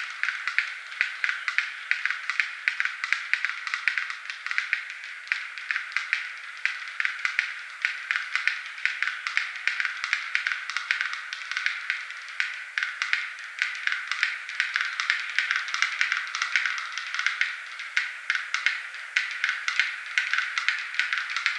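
Black-billed capercaillie display song: rapid dry clicks, about two loud ones a second among many fainter ones, going on without a break.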